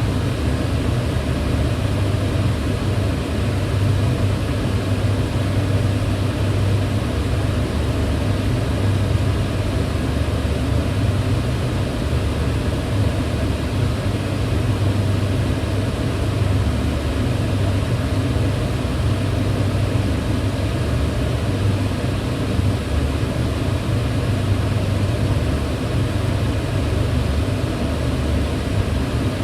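Kitchen range hood fan running steadily, a low hum under an even rush of air, with no change in level or pitch.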